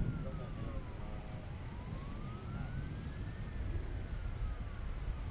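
Wailing siren, its single tone sliding slowly up and down about every four seconds, over a steady background rumble.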